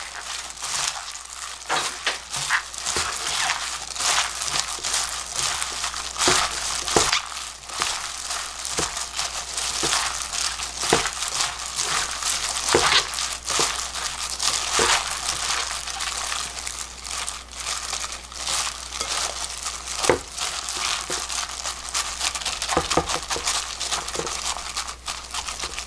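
A disposable plastic glove crinkling as a hand tosses cut small green onions in red pepper seasoning in a glass bowl, with frequent small clicks.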